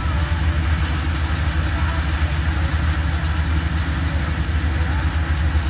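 Combine harvester's diesel engine running steadily under load, a deep even drone with a fast low throb.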